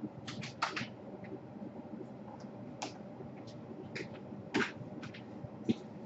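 Scattered small clicks and taps of hands and a screwdriver working on a laptop's underside as it is opened up, with a low handling rumble; the loudest tap comes about four and a half seconds in.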